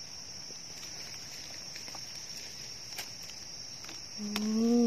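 Steady high-pitched insect drone in the forest, with a few faint crackles of dry leaf litter. Near the end a person's voice makes a short held hum, the loudest sound.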